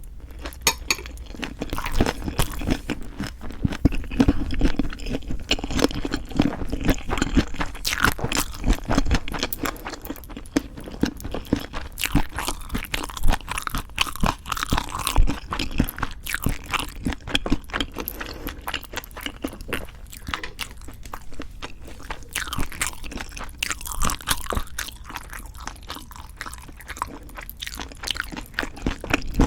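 Close-miked chewing of food wrapped in leaf wraps: a steady run of crisp, irregular crunches and wet chewing, with a few louder bites.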